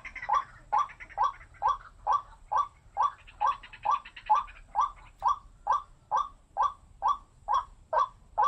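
White-breasted waterhen giving its repeated 'wak' call in a steady, even rhythm, about two and a half calls a second. A faster rattling chatter overlaps briefly around the first second and again around the fourth.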